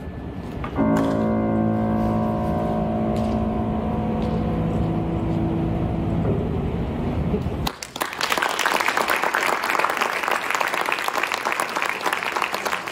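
A mixed chamber ensemble of strings, woodwinds, piano and drum kit sustains its loud final chord, which cuts off sharply about eight seconds in. Audience applause follows.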